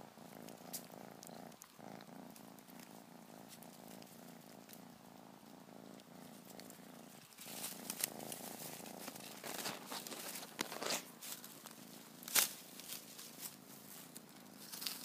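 Kitten purring close to the microphone, a faint steady rumble with a couple of brief breaks. From about halfway, scattered clicks and rustles of the hand-held camera moving through the grass join it.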